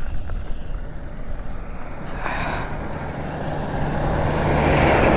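Dirt bike engine running steadily while riding, with wind rushing over the microphone and growing louder over the last couple of seconds.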